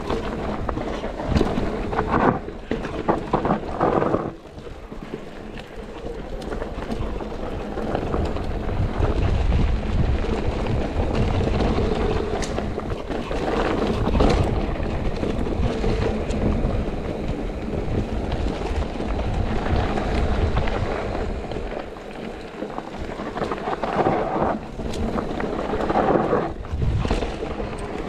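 Mountain bike riding down a dirt trail: wind rushing over the action camera's microphone and tyre rumble, with bursts of clattering from the bike over rough ground about two to four seconds in and again near the end.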